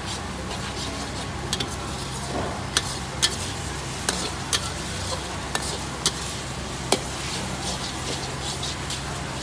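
A metal spatula scraping and clanking in a wok as pad thai is stir-fried, over a steady sizzle. About eight sharp, irregular clanks stand out above the frying.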